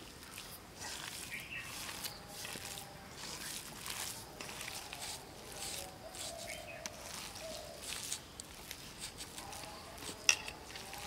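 Hands mashing and kneading cooked potatoes in a metal bowl: irregular soft squishing and crackling, with a single sharp tap near the end.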